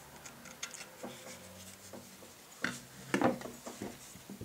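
Handling noise from a field-stripped Glock 17 pistol: light rubbing and small clicks of the polymer frame in the hand. A single knock comes about two and a half seconds in, then a louder cluster of knocks as the parts are set down on the table and picked up.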